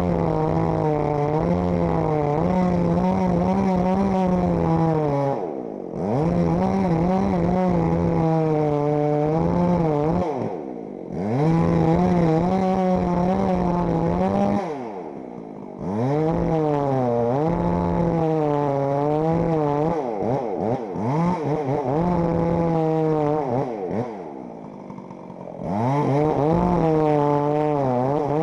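Chainsaw running at full throttle while cutting into a tree; four times it drops back toward idle with a falling pitch and then revs up again.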